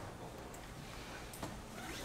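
Faint room tone of a quiet hall, with one short click about one and a half seconds in.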